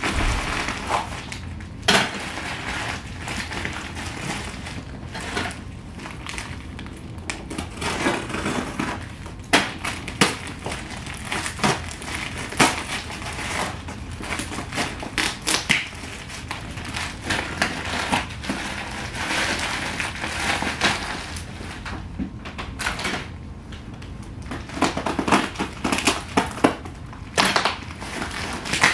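A package being torn open by hand: paper, packing tape and plastic wrapping rustling, crinkling and tearing in irregular short crackles.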